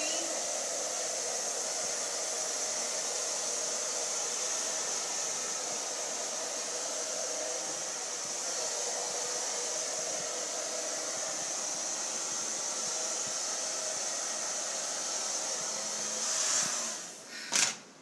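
Handheld hair dryer blowing steadily, then switched off near the end, followed by a single sharp click.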